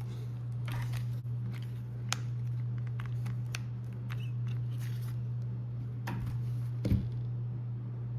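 Light clicks and taps of small plastic RC car parts and tools being handled, over a low steady hum, with a louder thump about seven seconds in.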